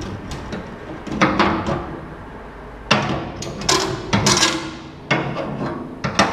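Sharp knocks on steel, about six irregular blows over several seconds, each ringing briefly, as on a tacked-in patch of the tray.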